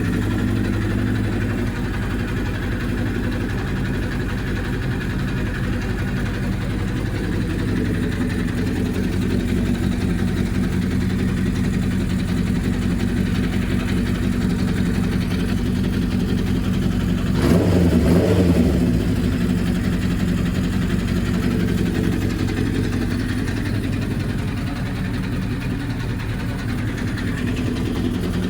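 Kawasaki GPZ900R's liquid-cooled inline-four engine idling steadily, with one brief throttle blip a little past halfway. The engine is running again after its carburettors were cleaned and a new wiring harness fitted.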